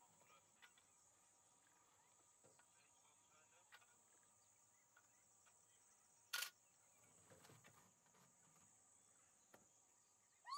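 Near silence in open bush: a faint, steady, high-pitched insect chorus, with one sharp click about six seconds in.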